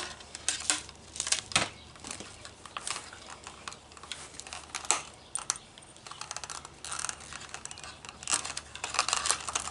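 Nylon trimmer line being pulled and unwound off the plastic spool of a string trimmer's bump head: irregular clicks, rustles and scrapes, with a quick run of clicks near the end.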